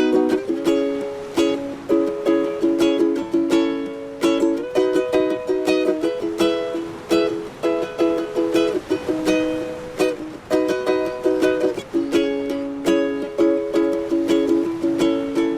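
Ukulele instrumental music: a steady run of plucked notes and strummed chords, several notes a second.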